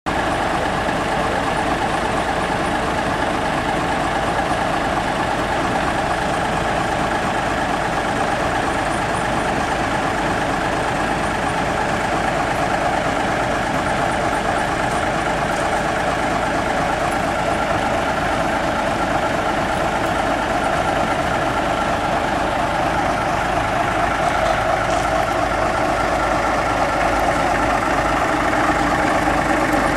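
Small diesel switcher locomotive's engine idling with a steady drone, growing a little louder near the end.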